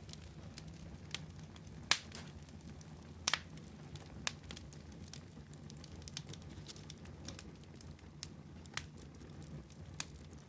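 Wood fire burning in a fireplace, crackling with irregular sharp pops and snaps over a steady low rumble of the flames. The loudest pops come about two seconds in and just after three seconds.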